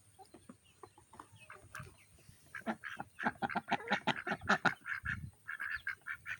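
Domestic ducks quacking in a rapid, busy run of calls that starts about a third of the way in and grows louder.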